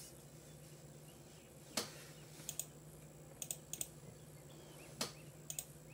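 Scattered clicking of a computer mouse and keyboard, mostly quick paired clicks with a few single ones, over a low steady hum from the running PC.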